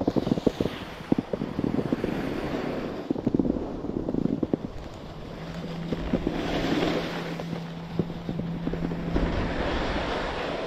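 Wind rushing over the microphone while skiing downhill, with the hiss of skis sliding on snow that swells and fades every second or two as they turn. A steady low hum comes in about halfway through.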